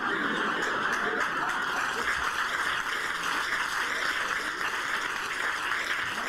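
A theatre audience laughing and applauding, a steady, dense wash of sound.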